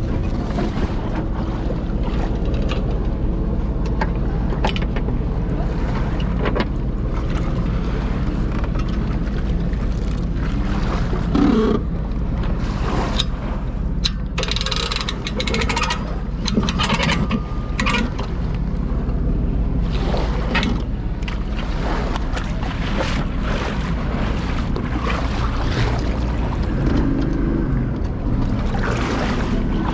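An engine running at a steady speed under way, with wind buffeting the microphone in gusts.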